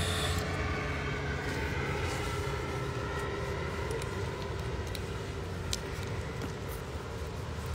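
Low rumble of a passing engine, its pitch falling slowly as it fades away, with a few faint clicks.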